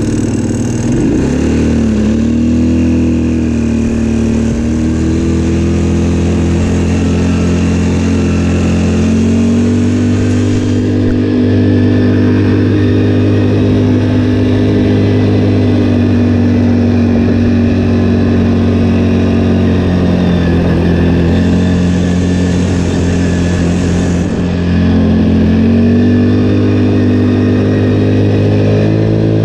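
Linhai 300 ATV engine running while riding, its pitch rising and falling as the throttle is opened and eased, with a lift about two-thirds of the way through.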